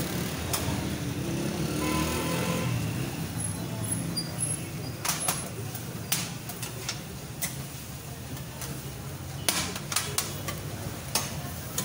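Metal spatulas knocking and scraping against a large steel pan as grated-carrot halwa is stirred, sharp clanks scattered irregularly and bunched together about five seconds in and again near the end. A steady low street hum and some murmured voices run underneath.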